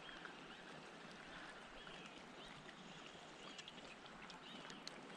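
Faint, steady rush of river water, with short arched chirps from a bird every couple of seconds.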